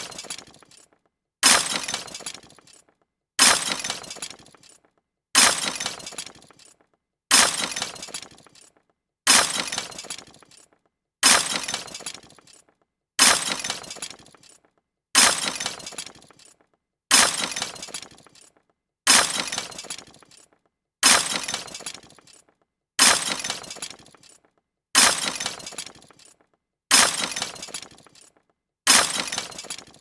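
Debris-hit sound effect: a sudden crash followed by smaller scattered clatters dying away over about a second, repeated about every two seconds, some fifteen times.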